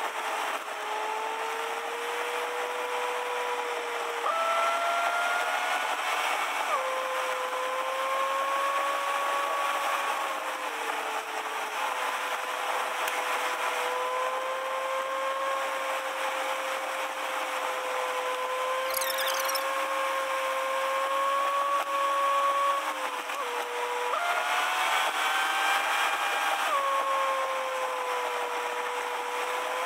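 Steady mechanical whine heard inside a moving car, holding a near-constant pitch that wavers slightly. A second, higher whine joins it twice, for a few seconds each time.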